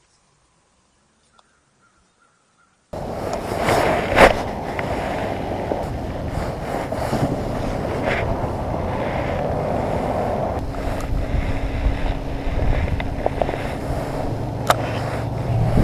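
Near silence for about three seconds, then wind buffeting an action-camera microphone: a loud, steady rumbling hiss, with a sharp knock about a second after it starts.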